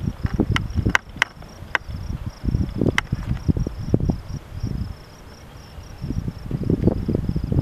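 Insects trilling steadily in a fast, even pulse, over gusts of wind buffeting the microphone in low rumbles. A few sharp clicks about a second in and again around three seconds.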